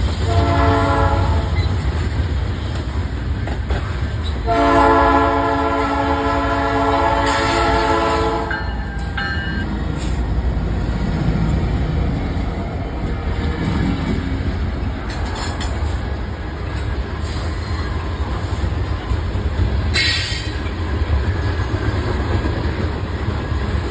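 Norfolk Southern diesel locomotive horn: a short blast near the start, then a long blast of about four seconds a few seconds later. Underneath throughout is the steady rumble and wheel clatter of a train rolling past on the rails, with brief high wheel squeals.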